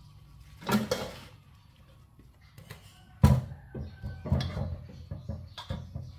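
Fresh red sesbania flowers tipped from a wicker basket into a stainless steel bowl and moved about by hand: rustling and light clatter against the metal, with one sharp knock about three seconds in that is the loudest sound, and several smaller knocks and rustles after it.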